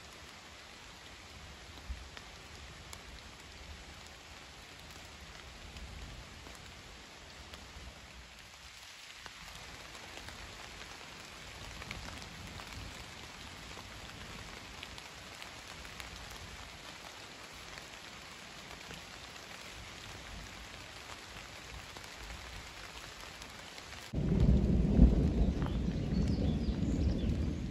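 Steady rain falling. A loud thunderclap breaks in suddenly near the end.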